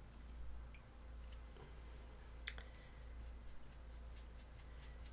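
Faint, soft squishing and light clicks of acrylic paint being mixed on a palette, the clicks coming more often in the second half.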